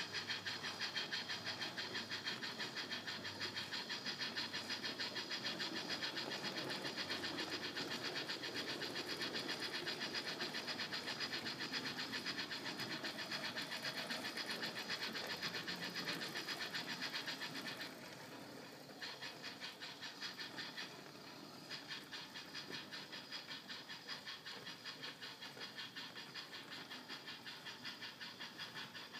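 Steam locomotive exhaust chuffs from a DCC sound decoder, an ESU LokSound running an LBSC Terrier sound, in an O gauge model locomotive, over the rolling rumble of the model wagons' wheels on the track. The chuffs come rapid and even, then drop to a softer level about two-thirds of the way through.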